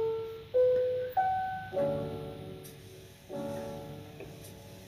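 Background jazz piano music: three single notes stepping upward about half a second apart, then two full chords, each ringing and fading away.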